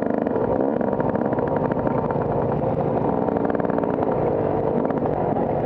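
Motocross bike engine running steadily with a rapid, even pulse as the bike rolls slowly over dirt, heard close up from a camera mounted on the bike.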